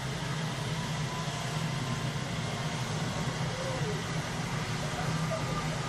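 Eurocopter Super Puma twin-turbine helicopter running on the ground with its rotors turning, a steady low drone, as it is prepared for takeoff.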